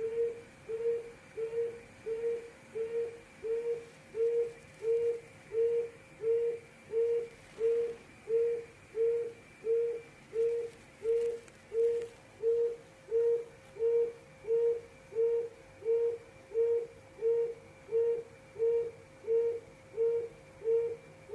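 Quail giving its 'hồi công' call: a low hooting note repeated steadily and evenly, about one and a half notes a second.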